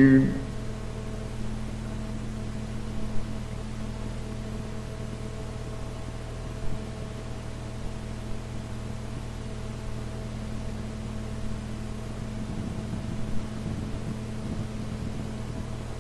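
Steady low hum and hiss of an old recording, with a few fixed droning tones and a few faint brief sounds.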